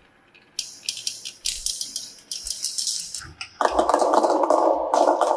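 Marbles clicking and rattling along a toy marble-run track in quick clusters of clicks, then a denser, lower rolling rattle from about three and a half seconds in.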